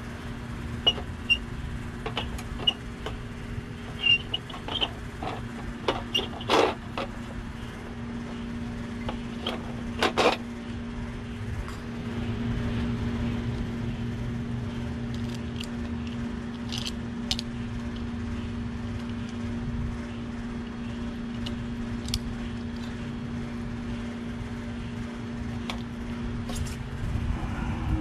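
Steady machine hum, with a scatter of sharp clicks and knocks from parts and connectors being handled in the first ten seconds or so. The hum gets a little louder about twelve seconds in.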